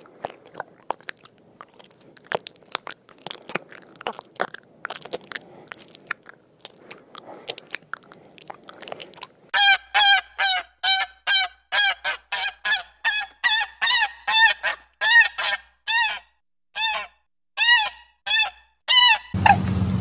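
Black swan calling: a regular series of short, high, pitched honks, each rising and falling, about two a second, for roughly ten seconds from about halfway in. Before them there are only faint scattered clicks and crackles.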